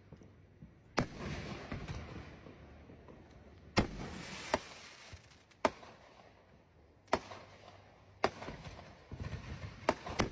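Fireworks going off: about eight sharp bangs spread out, the first two loud ones each followed by a second or so of crackling.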